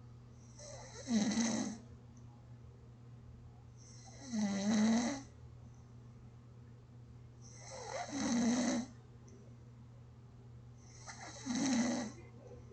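A person snoring gently and evenly, four snores about three and a half seconds apart, each lasting about a second. A faint steady low hum runs underneath.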